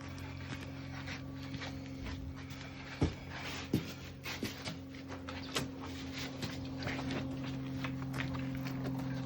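Scattered knocks and clinks of foundry gear being handled, the loudest two about three seconds in, over a steady low hum.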